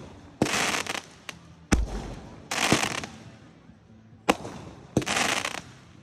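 Consumer aerial firework cake firing shot after shot. Each shot is a sharp pop and a crackling burst, coming about every two and a half seconds; one launch, around two seconds in, has a deep thump.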